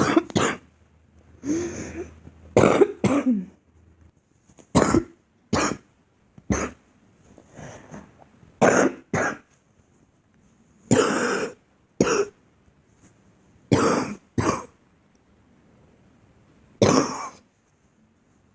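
A girl coughing repeatedly: about fifteen short coughs, some single and some in quick pairs, with irregular pauses of a second or two between them.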